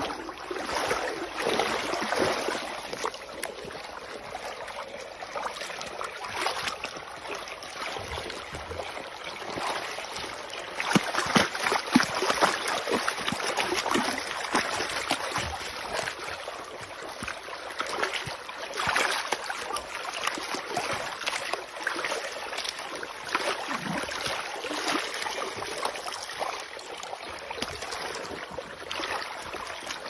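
Feet in sneakers wading and kicking through a shallow river, splashing and sloshing the water in many irregular splashes, with a louder stretch of splashing partway through.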